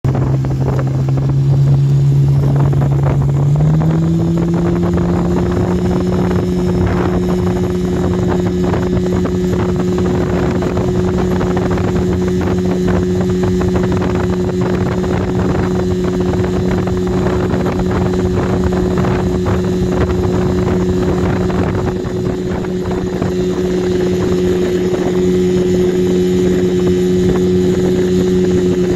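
25 hp Mercury outboard motor running under way. It picks up speed about four seconds in, then holds a steady pitch.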